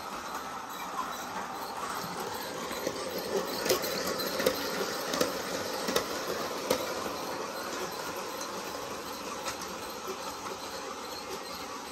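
Large-scale (G scale) electric model of Percy the small engine running along the track, pulling open wagons: a steady rattle of wheels on rail, with a run of sharp clicks about a third to halfway through as the wagons pass close by.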